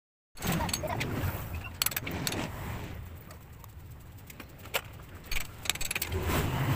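Scattered metallic clicks and clinks of hand tools and metal parts at the front axle of a pit bike's wheel as it is refitted between the fork legs, with a few sharper knocks in the middle.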